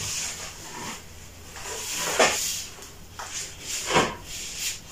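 A few separate knocks and scrapes, about two seconds in, about four seconds in and again near the end, from handling ceramic tiles and wooden support sticks during wall tiling.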